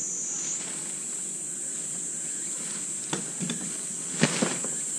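Steady high-pitched insect chorus, like crickets chirring. A few light knocks come about three seconds in, then a sharper, louder click just after four seconds.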